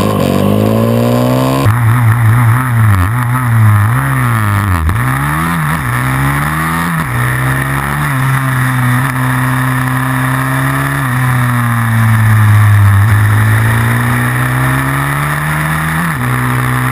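Supermoto pit bike's small single-cylinder four-stroke engine under race load, heard onboard. It revs up, drops abruptly at gear changes and when backing off for corners, holds steady on the straight for a few seconds, then builds again near the end.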